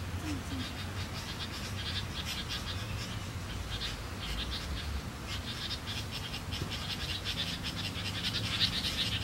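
Animal calls: rapid, high-pitched chirping in clusters that grow denser and louder near the end, over a low steady hum.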